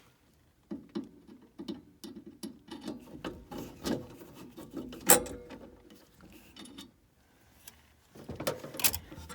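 Metal clinking and rattling as the burner assembly of a Trane gas furnace is handled and worked back into place over the gas jets, with one sharp metallic clack about five seconds in.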